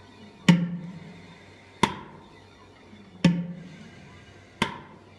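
Hand-pumped flow-meter calibration syringe being stroked in and out, its plunger knocking at the end of each stroke: four sharp knocks about one and a half seconds apart, every other one with a deeper ring. These are the calibration pumps through the metabolic cart's flow meter.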